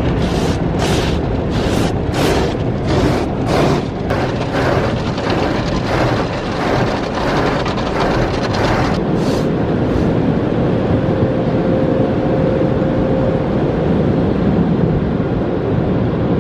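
Automatic tunnel car wash heard from inside the car: the wash brushes slap and sweep over the windshield and body in a fast, even rhythm of about two strokes a second. After about nine seconds the slapping stops, leaving a steady rush of water spray with a faint hum.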